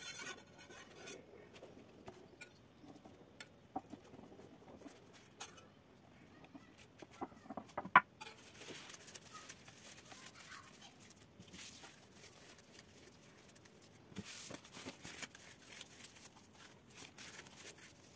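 Thin filo pastry sheets rustling and crinkling as they are crumpled by hand. Scattered light clicks come first, with one sharp knock about eight seconds in.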